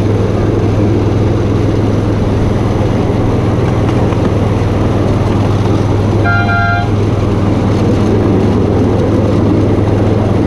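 Ride-on miniature train running steadily along its track with a constant low hum. About six seconds in, a short horn toot sounds once.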